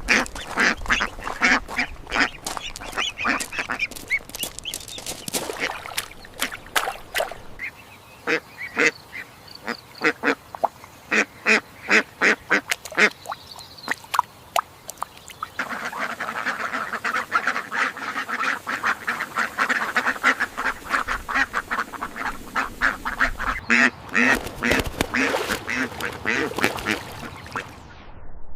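Ducks quacking: a long string of short quacks in quick runs, at times several a second.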